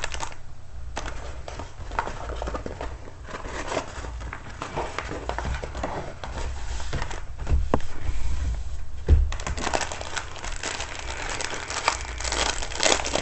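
Plastic packaging crinkling and rustling as the contents of a diamond painting kit are handled, with a couple of soft knocks partway through and busier rustling in the last few seconds.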